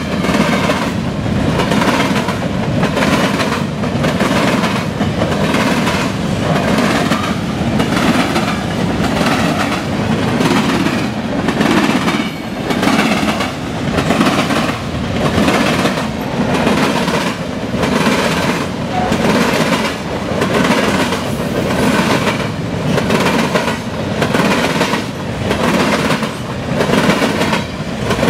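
Loud freight train of covered hopper cars passing, its wheels clacking over the track in a steady rhythm of roughly one set of clacks a second over a continuous rumble.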